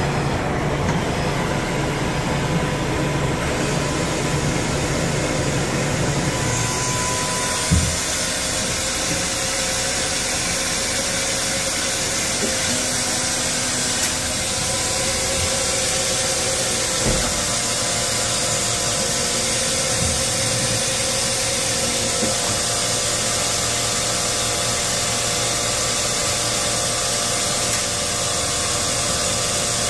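Steady running noise of powered machinery with an airy hiss that grows stronger about seven seconds in, and a light knock about eight seconds in and again near seventeen seconds.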